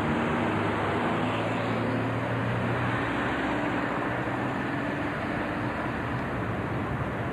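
Steady engine hum and road noise of a car driving along a suburban street.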